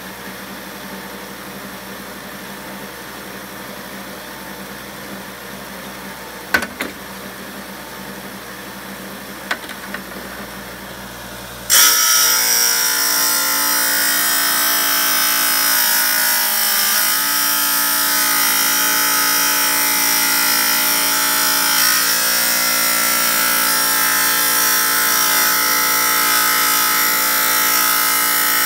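Chicago Electric wet tile saw running with a steady motor hum, then about twelve seconds in the diamond blade bites into a piece of stone and a much louder, steady grinding takes over as the stone is fed through the cut.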